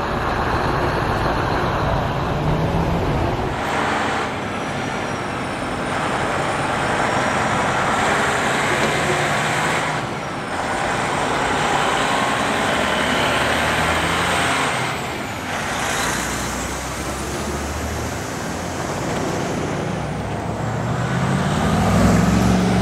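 Heavy trucks towing large race car transporter trailers drive past one after another, with diesel engines running, tyre noise on the road and surrounding traffic. The sound changes abruptly a few times as one pass gives way to the next.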